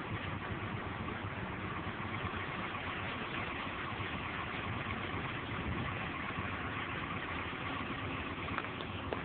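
A boat engine running steadily, with wind and water noise.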